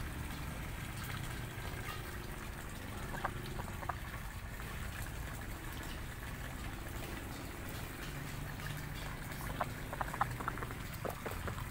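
Domestic ducks giving a few short, soft calls, a couple about three to four seconds in and several more near the end, over a steady low rushing background noise.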